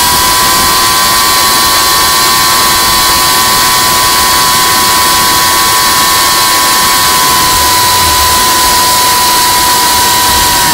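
FPV quadcopter's brushless motors and propellers whining steadily in flight, with a loud rush of hiss; the pitch steps up as the throttle rises at the start, then holds nearly level.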